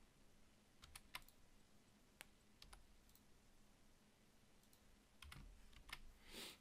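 Faint, scattered clicks of a computer keyboard and mouse, a few at a time with pauses between, over near-silent room tone. A short soft rustle comes near the end.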